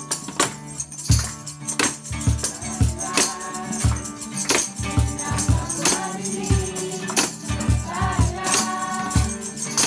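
Group of carolers singing to strummed acoustic guitar, with the deep thumps of a Pearl cajón and tambourines jingling on the beat.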